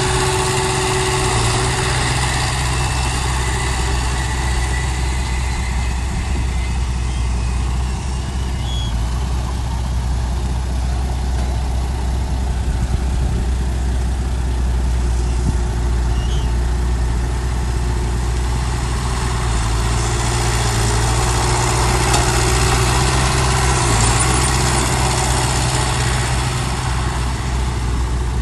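Heavy diesel engine of a bulldozer or dump truck running steadily with a deep drone, a little louder about two-thirds of the way through.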